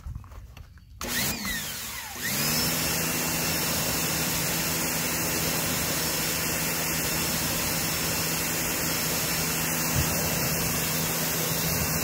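Sun Joe electric pressure washer starting when the spray-gun trigger is pulled (its Total Stop system runs the motor only while spraying). About a second in the motor rises in pitch as it spins up. It then runs steadily with a high-pitched whine over the hiss of the water jet.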